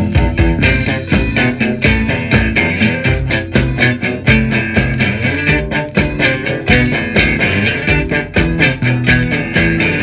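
Alternative rock song playing from a vinyl LP on a turntable: an instrumental stretch with electric guitar, bass guitar and a steady drum beat, no singing.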